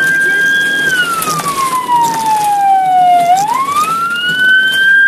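Ambulance's electronic siren on its wail cycle: the tone holds high for about a second, falls slowly to a low pitch, then climbs quickly back up near the end and holds high again.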